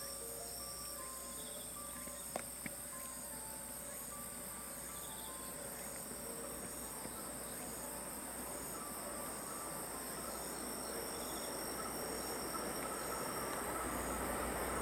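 Insects trilling steadily in the grass, then the rising rush of a JR West Thunderbird limited express electric train's wheels on the rails growing louder over the last few seconds as it approaches at speed. Two sharp clicks sound about two and a half seconds in.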